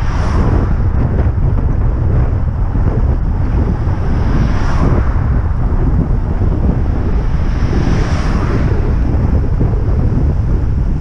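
Wind buffeting the microphone of a bike-mounted camera on the move. Brief swells of rushing noise come three times, the first as an oncoming car passes.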